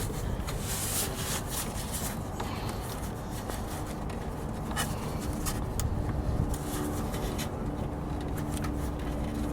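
Hands rubbing and scraping against the plastic wheel-well liner and around the side marker bulb socket while working it loose by feel, with scattered small clicks and rustles over a faint steady low hum.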